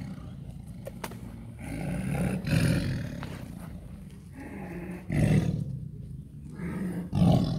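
Tiger giving several low, throaty roaring growls, each under a second long, spread over a few seconds.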